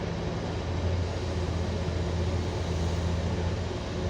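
Hyundai 1250-9 excavator's diesel engine running with a steady low drone, growing a little louder about a second in.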